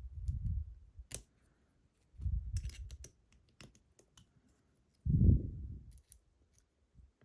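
Small sharp metallic clicks and scrapes as a lock pick works against the parts of a disassembled ASSA Desmo lock, with three dull low bumps of handling, the loudest about five seconds in.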